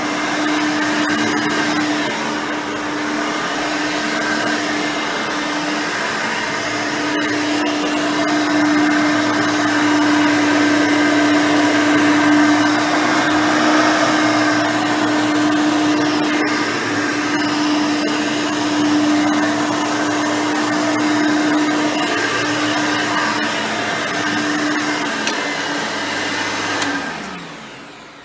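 Hoover Elite 5.0 upright vacuum running on its rebuilt original 5-amp motor, a steady hum with a few sharp ticks. About 27 seconds in the motor shuts off and winds down, its pitch falling as it fades.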